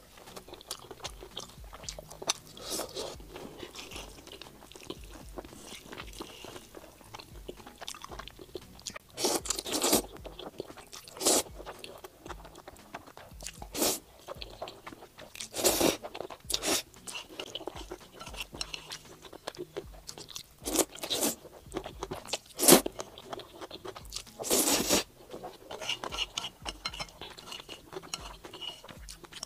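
Close-miked mukbang eating sounds: chewing and biting into braised pork belly on the bone, and slurping rice noodles. A string of loud, short slurps and bites stands out over steady chewing, most of them in the second half.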